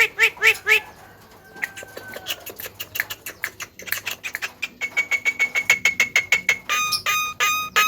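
Javan myna (jalak kebo) calling and chattering. It opens with a fast run of repeated notes, followed by a quieter stretch of scattered clicks. Then comes rapid ticking over a steady high whistle, and near the end loud pulsed, multi-toned notes about four a second.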